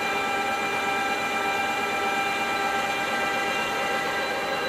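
KAMI DKM 410 L centre lathe running under power: a steady whine of several constant tones over an even mechanical hum, with no change in pitch.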